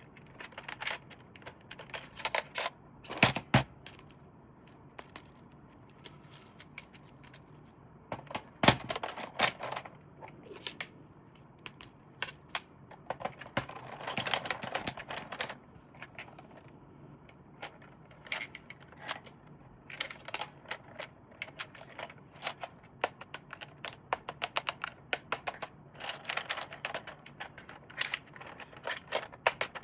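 Irregular clicks, taps and rustling from hands handling plastic toy parts and packaging. The loudest are two sharp knocks, and there is a longer rustle about halfway through.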